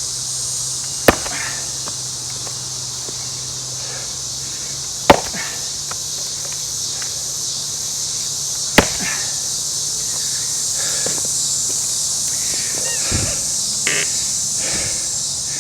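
Axe blows into a Scots pine round as the axe is driven in to split it: three sharp strikes about four seconds apart, then a few lighter knocks near the end. Insects chirr steadily in the background.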